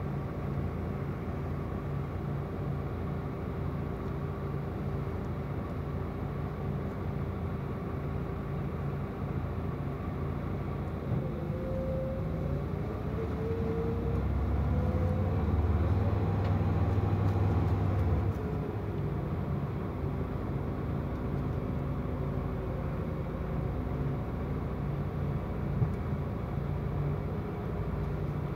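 Mercedes-Benz Tourismo coach on the move, heard from inside the cabin: a steady engine and road drone that grows louder for a few seconds in the middle, with a whine gliding upward just before the swell. A single sharp knock comes near the end.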